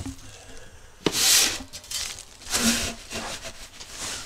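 Three or four short bursts of rustling and rubbing, the loudest about a second in, as things are handled among feed sacks and a plastic feed bucket.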